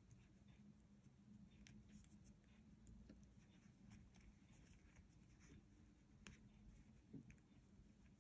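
Faint, scattered clicks and light scraping of knitting needles against each other and the yarn as stitches are cast on one by one, over a low steady hum.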